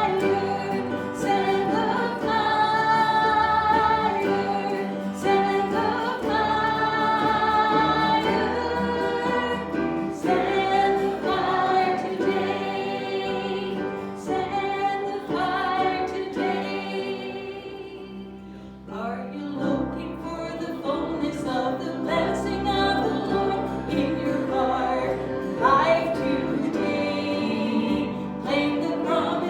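Congregation singing a hymn with instrumental accompaniment, long held notes over a steady low tone. The sound dips briefly about two-thirds of the way through, then the singing picks up again.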